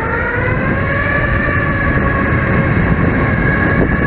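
Airbus A321neo's CFM LEAP-1A jet engines at taxi power. Their whine rises in pitch over about the first second, then holds steady over a low rumble.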